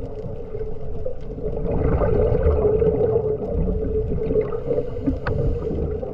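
Underwater sound on a scuba dive: a steady hum over low rumbling, growing louder about two seconds in, with a few faint clicks.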